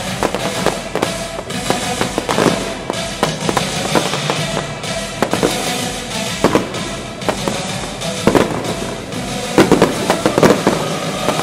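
Aerial fireworks shells bursting in rapid, irregular bangs and crackles over background music. The bangs come thickest and loudest near the end.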